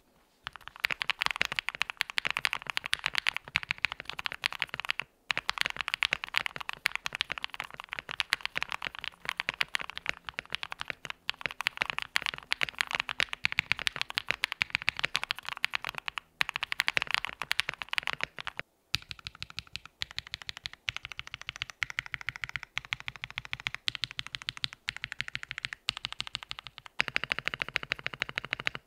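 Fast typing on a custom mechanical keyboard (Akko ACR Pro with a polycarbonate plate, KTT Halu Halo switches lubed with 205g0, Durock V2 stabilizers): a dense run of quick key clacks, the "creamy pops" of lubed switches, with a few brief pauses.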